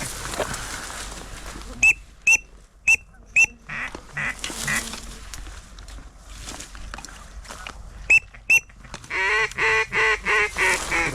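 Hand-blown duck calls working ducks: a drake mallard whistle gives four short, loud peeps about two seconds in and two more about eight seconds in, then a mallard duck call blows a quick series of about six loud quacks near the end.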